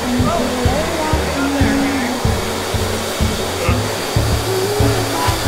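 High-velocity dog grooming dryer blowing a steady rush of air through its hose onto a wet puppy's coat. Background music with a low, stepping bass line plays over it.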